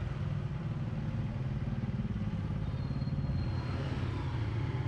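Small motorbike engine running steadily at low speed.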